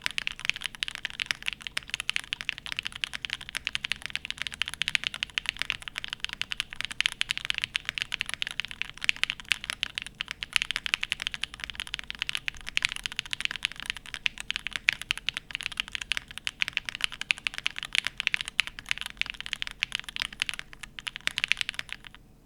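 Continuous fast typing on a TKD PT.1/75 mechanical keyboard with stock Gateron Deepping switches and SW Beige keycaps. The keystrokes are a dense run of sharp, nutty clacks that stop suddenly just before the end.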